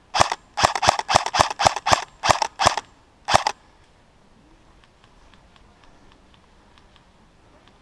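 Airsoft rifle fired in quick single shots, about ten sharp cracks at roughly three a second, with a short pause before the last one.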